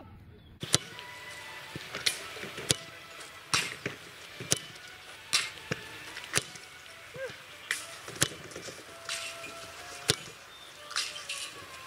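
Footballs kicked one after another in rapid succession, a sharp thud about once a second, some coming closer together.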